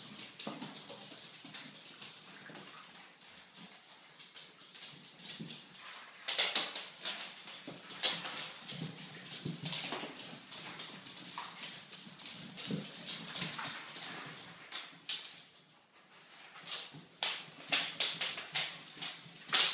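Yorkshire terriers play-fighting, making dog noises, with many quick, sharp clicks and scrabbles of claws on a laminate floor. The clicks come thickest from about a third of the way in and again near the end.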